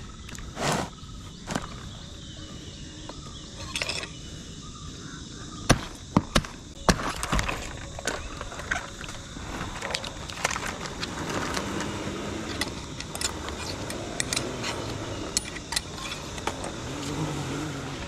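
Scattered sharp knocks and clicks with rustling, from a climber handling coconut bunches, rope and fronds at the top of a coconut palm.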